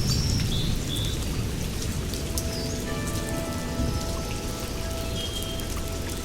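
Steady rain, heaviest in the low end, with faint held tones and a few short high chirps over it.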